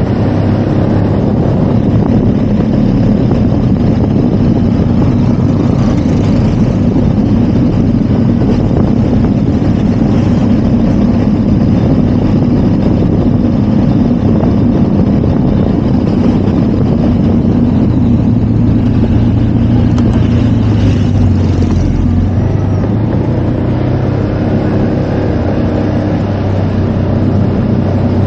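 Motorcycle engine running at a steady riding speed, with a low rumble of wind and road noise; the engine hum shifts slightly in pitch about two-thirds of the way through.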